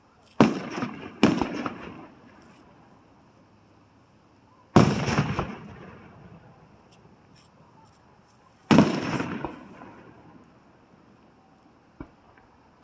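Aerial firework shells bursting: two sharp booms in quick succession near the start, a third about a third of the way in, and a fourth about two-thirds in, each followed by a rumbling echo that dies away over a second or so. A small pop near the end.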